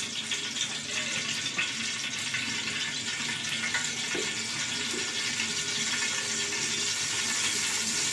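Refined oil sizzling with a steady hiss as it heats in a hot, dry aluminium pot, just after being poured in.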